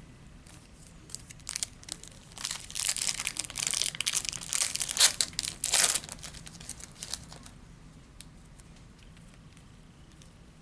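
A trading-card pack wrapper being torn open and crinkled: a run of crackling, papery rustles in the middle few seconds, fading to faint handling sounds near the end.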